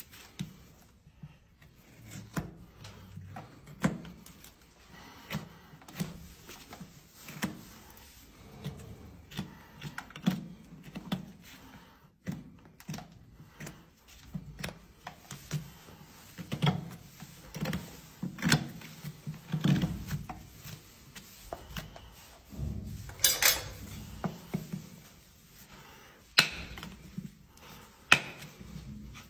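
A horse's hoof being trimmed with farrier's tools: irregular sharp clicks, snaps and knocks of nippers and knife cutting the hoof horn, with a longer scrape about three quarters of the way in and a couple of loud sharp snaps near the end.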